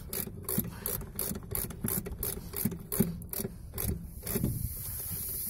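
Hand wrench working a nut on a semi-trailer's air spring mounting, in short rasping strokes at about four a second. About four and a half seconds in the strokes stop and a steady high hiss begins.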